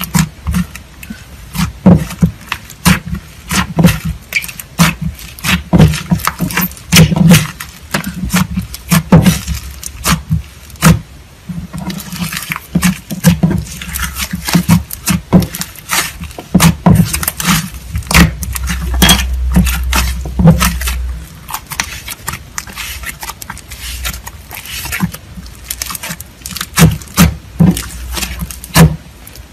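Metallic green slime being squished, folded and kneaded by hand into white clay, giving rapid, irregular clicks and pops.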